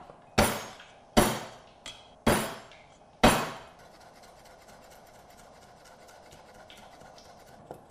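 Chinese cleaver chopping ginger on a round wooden chopping block: four loud chops in the first three and a half seconds, each with a short ring, then a fast run of much lighter chops.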